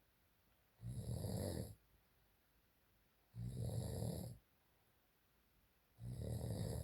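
Snoring: three snores evenly spaced about two and a half seconds apart, each about a second long, with near silence between them.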